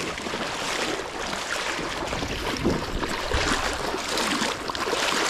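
Water sloshing and swishing steadily around legs in waders wading through shallow sea water.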